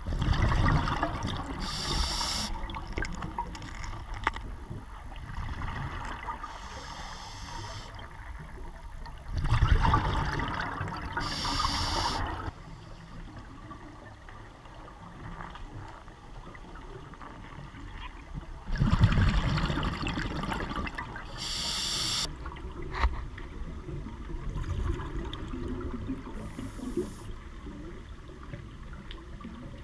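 Scuba diver's open-circuit regulator breathing, heard underwater: three bursts of exhaled bubbles about nine to ten seconds apart, each lasting about three seconds with a short high hiss near its end, with a quieter wash of water between breaths.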